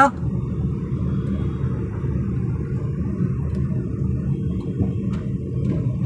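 Steady low rumble of a vehicle driving along a road, engine and road noise heard from on board.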